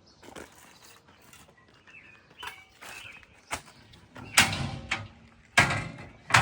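Doors being shut and locked: a few sharp knocks and clunks of doors and latches, the two loudest about four and a half and five and a half seconds in.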